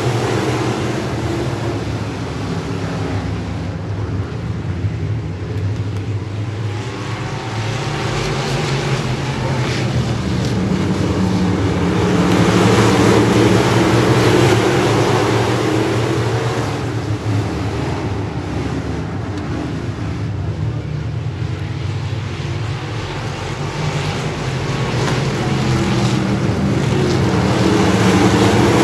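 A pack of short-track stock cars racing around an asphalt oval, their engines running hard together. The sound swells as the field comes past and eases as it goes round the far side, peaking about every 13 to 14 seconds.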